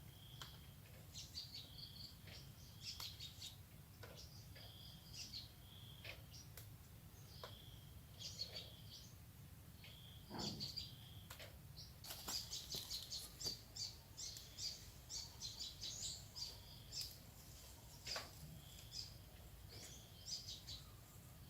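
Birds calling faintly: a short whistled note at one pitch repeated every second or two, with a busy run of quick chirps in the middle, over a faint low rumble.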